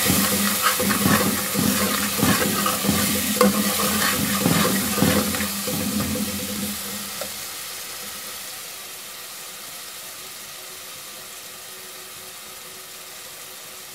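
Steel spoon stirring and scraping a frying onion-and-tomato masala in a metal pot, in quick irregular strokes over the sizzle of hot oil. The stirring stops about seven seconds in, leaving a quieter steady sizzle.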